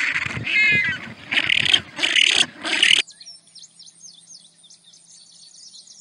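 African penguins braying: several loud, harsh calls in quick succession over about three seconds, one with a rising squeal. It then cuts abruptly to faint, high, quick chirping.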